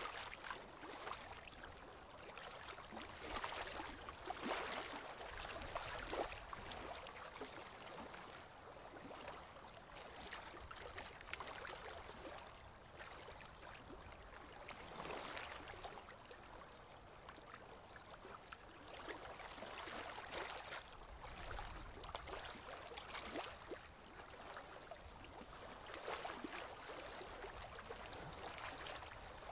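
Faint, scratchy hiss of colouring strokes on Bristol paper, swelling and fading in repeated passes every few seconds.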